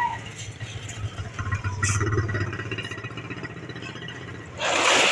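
A small engine running close by, its hum swelling for a second or two and then fading. A single click comes about two seconds in, and a short loud rush of noise comes near the end.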